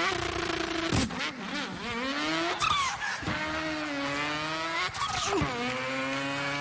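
A man imitating a car engine with his voice: the engine note climbs in pitch, drops, and climbs again several times, like a car accelerating up through the gears.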